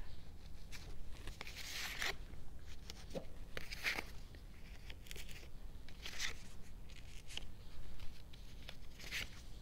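Construction-paper hearts with Velcro pieces on the back being handled and pressed one by one onto a fabric board: a series of brief, soft rustles and scratches of paper and Velcro.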